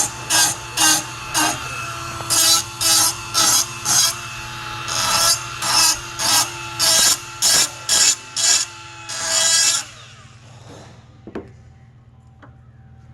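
Milwaukee M12 right-angle die grinder running with a carbide burr bit, the burr biting into metal in short rasping strokes about two a second over a steady motor whine. The grinder stops about ten seconds in.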